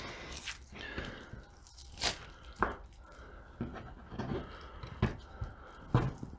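Hands working a raw chicken thigh on a plastic cutting board: wet tearing and pulling of meat and skin, broken by a few short sharp knocks on the board, the loudest near the end as the knife is picked up.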